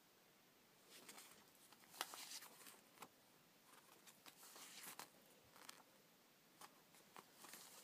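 Near silence, broken by faint scattered rustles and taps from paper cards being handled and shuffled.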